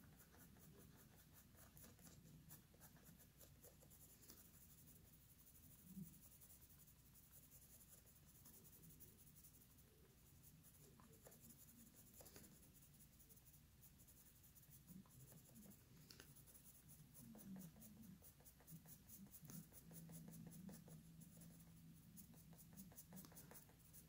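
Faint scratching of a colored pencil stroking lightly across paper.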